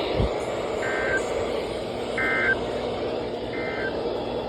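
Three short bursts of Emergency Alert System digital data tones on NOAA Weather Radio, about 1.4 s apart: the End of Message code that closes the alert. Each burst is a buzzy warble under half a second long, over steady radio hiss.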